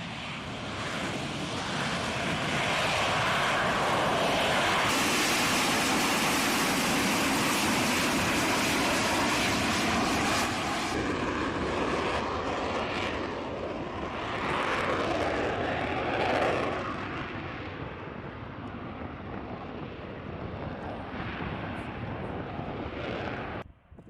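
F-35B Lightning II's F135 turbofan jet engine heard in a flying display pass, a loud jet noise. It builds over the first few seconds, holds, swells again about two-thirds of the way through, then fades, and cuts off abruptly near the end.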